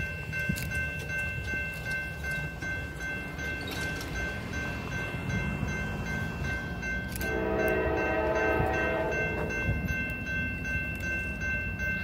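Grade-crossing warning bell ringing steadily as a Norfolk Southern diesel freight approaches with a low rumble. About seven seconds in, the locomotive's multi-chime horn sounds one long blast lasting two to three seconds.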